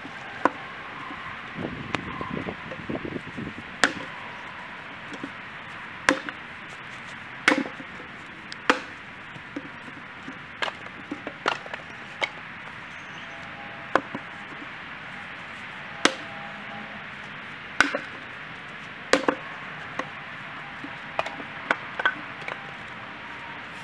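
Fiskars X27 splitting axe striking firewood rounds held upright inside a tire, each blow a sharp crack of wood splitting. There are about a dozen blows at uneven gaps of one to several seconds, with lighter knocks of wood in between.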